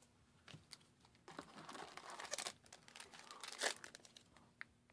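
Trading-card booster pack wrapper crinkling and tearing as it is opened by hand, in irregular rustles, with one sharp crackle about three and a half seconds in.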